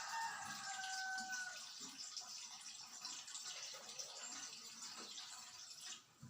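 Water running into a feeding-bottle sterilizer pot as it is filled with about two inches of water, stopping near the end.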